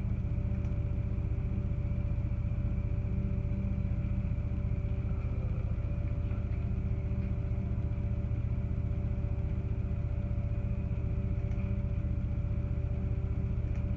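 Steady low mechanical hum of room ventilation, with a few faint held tones over it.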